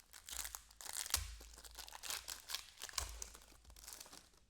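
Chrome baseball trading cards being handled and flipped through: an irregular run of crisp crinkles, swishes and light clicks as the cards slide against one another.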